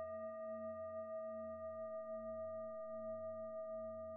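Singing bowl tones ringing on in a long sustained hum, several pitches held together with a gentle wavering beat and slowly fading.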